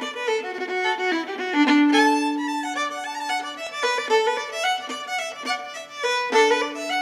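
Irish reel played on fiddle as intro music: quick runs of notes, with a long held low note about two seconds in and again near the end.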